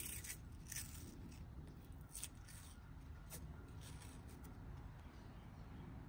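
Faint scratchy crackles of a white strip being peeled off a threaded metal bushing sleeve from a leaf spring link, mostly in the first couple of seconds, over a low steady hum.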